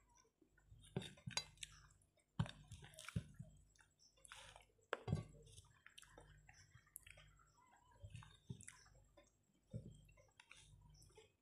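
Faint eating sounds of a person eating rice and curry by hand: chewing and soft wet squelches of fingers in the food, with scattered small clicks.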